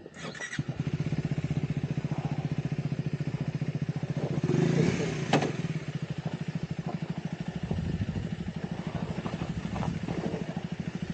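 Single-cylinder adventure motorcycle engine running at low revs with a fast, even pulse. It picks up briefly about halfway through, when a single sharp click is heard.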